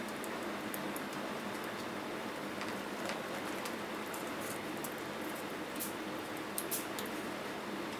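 Wood-fired tin-can rocket stove burning juniper sticks under a pan of milk and water nearly at the boil: a steady hiss with scattered faint crackling ticks.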